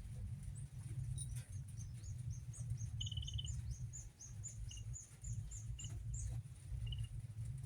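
A bird calling: a run of short, high, falling chirps about twice a second, with a brief buzzy trill in the middle, over a steady low rumble.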